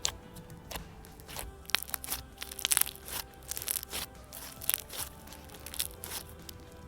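Savory-scented floam slime with a styrofoam cube mixed in, being squished and pressed, making irregular crunchy clicks and bubble pops, over quiet background music.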